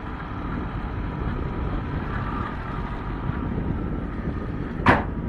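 Steady low rumbling noise outdoors, with a single short sharp click about five seconds in.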